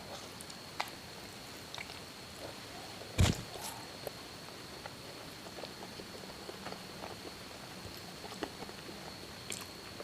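Close-miked chewing and biting of siomay, soft fish dumplings and stuffed tofu: scattered small wet mouth clicks, with one much louder knock about three seconds in.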